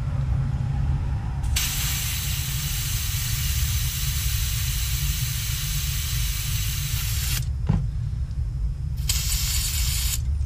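Butane hissing as a can of butane is pressed into the fill valve of a butane soldering iron: one long hiss of about six seconds, then a shorter one of about a second near the end. The iron is being topped up because it would not light and was thought to be low on fuel. A steady low rumble runs underneath.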